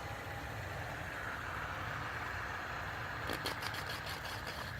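A fidget spinner spinning with a steady whirring hum, and a quick run of light clicks a little over three seconds in.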